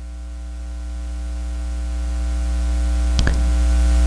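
Steady electrical hum from the recording or sound system, getting gradually louder through the pause, with one brief short sound about three seconds in.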